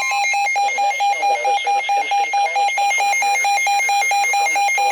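Electronic emergency-alert beeping: one pitched tone switching rapidly on and off, about four beeps a second, with a fainter voice underneath. It is the alert signal of a broadcast severe thunderstorm warning.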